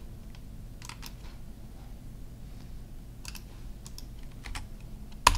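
Scattered key presses and clicks on a computer keyboard and mouse, with one sharper, louder click near the end.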